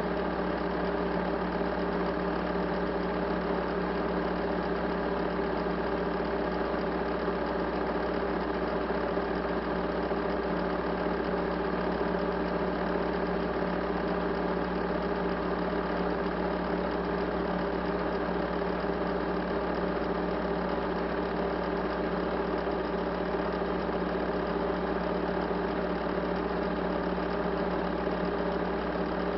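A steady, even mechanical hum made of several held tones.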